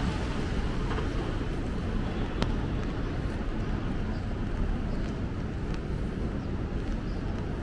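Steady city street noise of traffic on rain-wet streets: a low rumble with an even hiss, with a faint click about two and a half seconds in.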